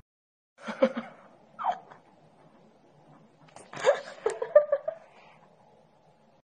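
A person laughing: a couple of short bursts, then a quick run of chuckles about four seconds in.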